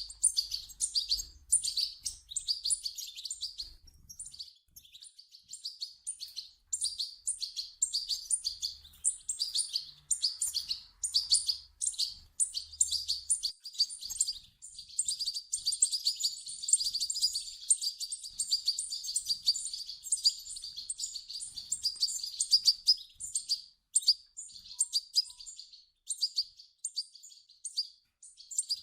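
European goldfinch chicks calling: a dense, near-continuous stream of rapid, high chirps with only brief pauses.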